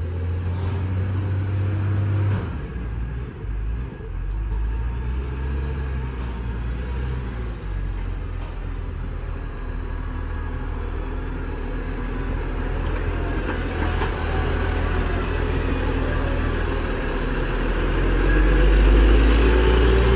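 Diesel engine of a Shuttlewagon railcar mover running as the machine drives along the track toward and past, with a steady low engine note that grows louder near the end.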